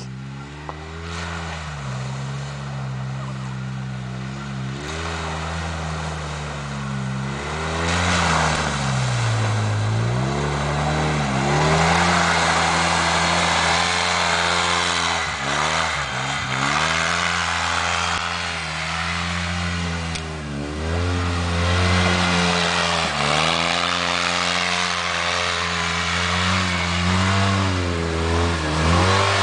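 Polaris RZR side-by-side's engine running through a series of muddy whoops, its note dipping and climbing again and again as the throttle comes off and back on over each bump. It grows louder from about eight seconds in as the machine comes close.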